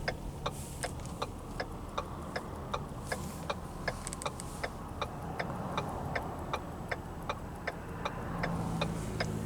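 Self-winding wristwatch ticking close to the microphone, about three sharp ticks a second, over a steady low hum.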